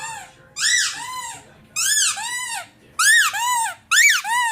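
Squeaky dog toy squeezed and released over and over, roughly once a second. Each squeeze gives a pair of high squeaks that rise and fall in pitch.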